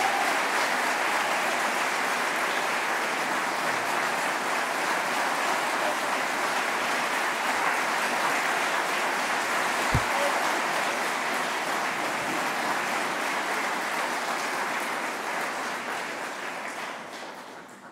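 An audience applauding steadily, fading away near the end, with a single low thump about halfway through.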